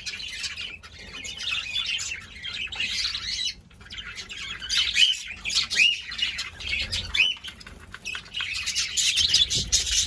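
Budgerigars chattering and squawking loudly, a dense flock chatter with several sharp rising-and-falling calls about halfway through. The noise is a bird objecting to a person at its nest box.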